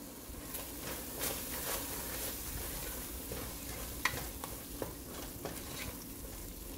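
Wooden spatula stirring a thick onion-tomato masala with spice powders in an aluminium pressure cooker, with irregular scrapes and knocks against the pot over the sizzle of frying in oil.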